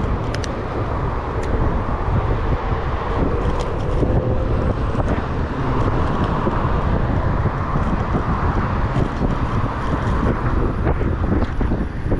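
Steady city road traffic heard from a moving bicycle, with wind rustling on the microphone.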